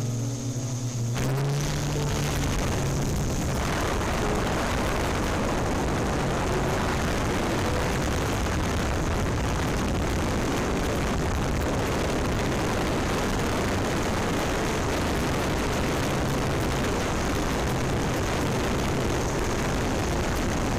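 Yuneec Typhoon Q500+ quadcopter's motors and propellers running in flight, heard on board as a steady rushing whir with a thin high whine. Music cuts out about a second in.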